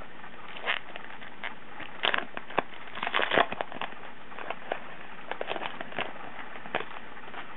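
Baseball card pack wrapper being torn open and handled, a run of irregular crinkling crackles and crisp clicks, the loudest bunch about two to three and a half seconds in.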